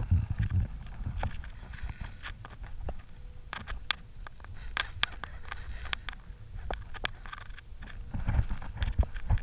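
Irregular sharp clicks and knocks of a fishing rod and baitcaster reel being worked while a hooked fish is fought from a kayak, over a low rumble of wind and water on the camera.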